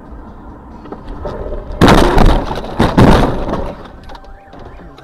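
A car colliding with a white van: two loud impacts about a second apart over low engine and road noise. A car alarm starts sounding right at the end.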